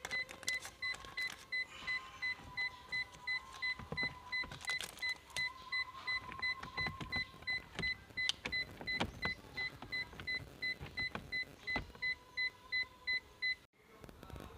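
A car's electronic warning beeper sounds steadily, about three beeps a second, and stops shortly before the end. Plastic clicks and knocks come as the console trim around the gear lever is pressed into place.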